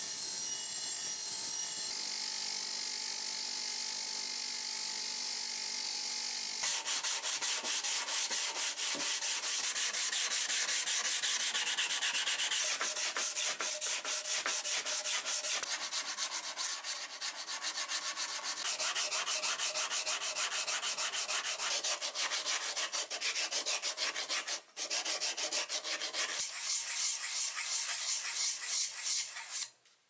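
Villager VLN355 bench grinder running, its wheel working the steel edge of an axe blade, with a steady hum. About six and a half seconds in it gives way to a hand sanding block rubbed back and forth over the steel blade in quick, even strokes, which go on until just before the end.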